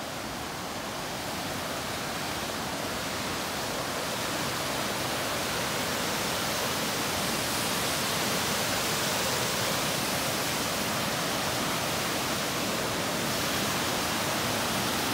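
Waterfall pouring over rock ledges: a steady, even rush of water that grows slightly louder over the first few seconds.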